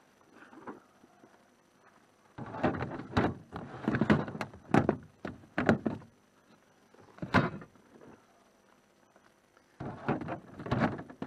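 Plastic storage totes being slid and knocked into place inside a Rubbermaid Action Packer plastic cargo box: clusters of hollow plastic knocks and scrapes, with a single sharp knock about seven seconds in and more knocking near the end.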